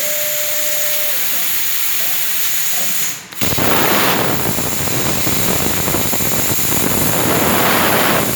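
Plasma cutter cutting holes in steel plate: a steady loud hiss of the air and arc. It drops out briefly about three seconds in, then comes back louder and rougher, with more low rumble.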